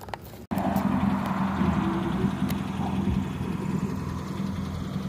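Motor vehicle engine running steadily, with road noise, starting abruptly after a short gap about half a second in.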